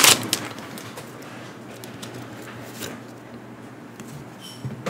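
Booster-pack foil wrapper crinkling briefly at the start, then a quiet room hum with a few faint ticks of cards being handled.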